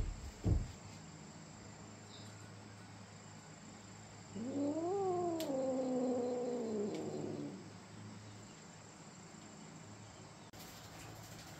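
A cat's single long yowl, about three seconds, rising in pitch and then slowly falling, preceded near the start by a short low thump.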